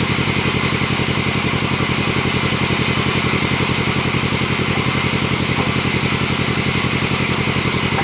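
Band sawmill machine running steadily, an engine-like drone with a fast, even pulse.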